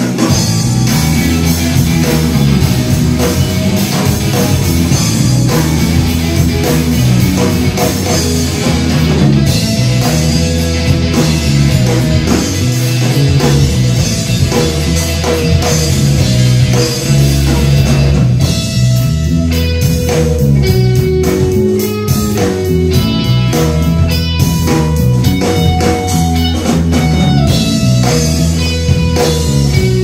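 Live rock band playing an instrumental passage with no vocals: electric guitar over drum kit and bass, loud and continuous. A little past halfway the dense wash of drums thins and single held guitar notes stand out more clearly.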